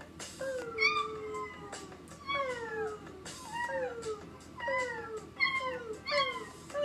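Puppies howling and whining on a played-back video: a string of high cries, each falling in pitch, about one a second, some overlapping as several puppies cry together.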